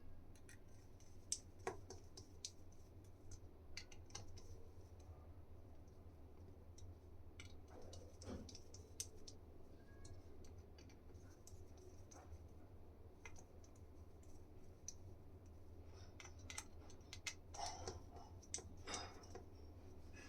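Irregular light clicks and taps from small keyboard parts being handled and pressed together during assembly, busier near the end, over a steady low hum.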